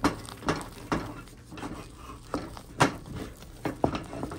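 A utensil knocking and scraping against a heavy-bottomed pot while thick churro dough is stirred and pre-cooked over low heat. There are irregular sharp knocks about every half second as the stiff flour paste is worked.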